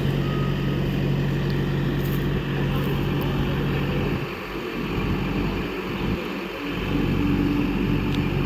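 Heavy diesel machine engine running steadily, its sound easing off twice around the middle before coming back up.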